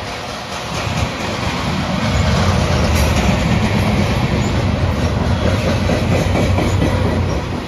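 Freight cars rolling past close by: steel wheels rumbling and clattering over the rails, growing louder about a second in and easing off near the end.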